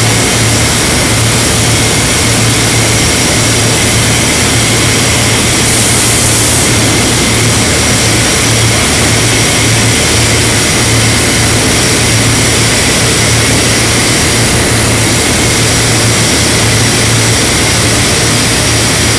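Loud, steady industrial machinery drone of a steel fabrication shop: a constant low hum under a broad hiss, with a brief high hiss about six seconds in.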